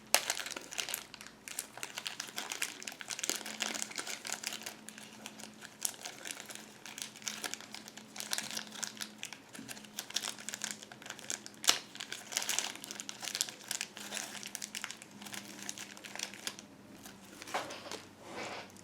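Plastic packaging crinkling and crackling as it is handled and pulled off, a continuous run of irregular crackles with a few sharper snaps.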